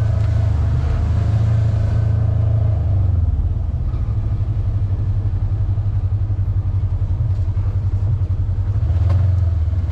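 Side-by-side buggy's engine running steadily as it drives along a dirt track, a low drone with a few faint knocks near the end.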